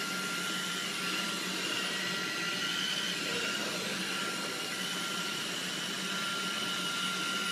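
Steady hiss with a thin, even high whine running under it; no distinct events.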